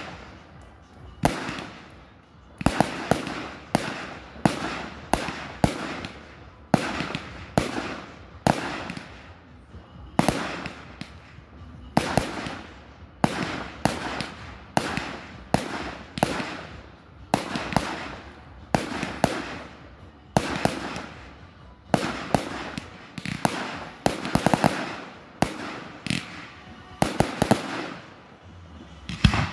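Fireworks display: aerial shells bursting overhead in quick succession, about one bang a second, each followed by a fading echo.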